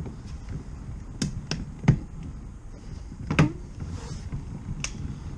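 Scattered sharp clicks and knocks from a wire windshield cut-out tool being worked along the glass, the loudest about two seconds in and another about three and a half seconds in, over a low rumble.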